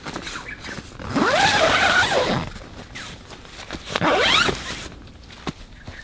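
Two drawn-out scraping strokes, something pulled or drawn with friction, the first about a second in and lasting over a second, the second shorter near the four-second mark; each slides up and down in pitch like a squeak, with a few light clicks between.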